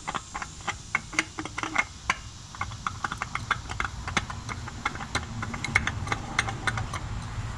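A new Honda oil filter being spun onto its threaded mount by hand, the metal canister giving off light, irregular clicks and ticks, several a second, as fingers turn and grip it.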